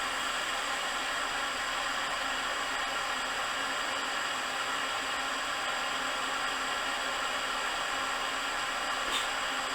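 Steady, even hiss of a burner flame running.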